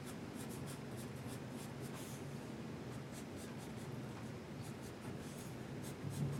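Graphite pencil scratching on paper in many short, quick strokes, faint.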